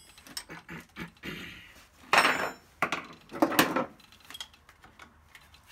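Metal tool clatter: a ratchet wrench with a crow's foot knocking and clinking against the fuel inlet fitting of a diesel engine as the fitting is loosened to bleed air. A few separate knocks, the loudest about two seconds and three and a half seconds in.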